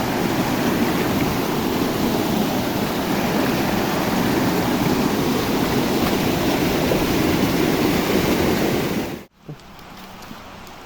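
Fast-flowing river water rushing, loud and steady. About nine seconds in it cuts off abruptly to a much quieter patter of rain with a few light taps.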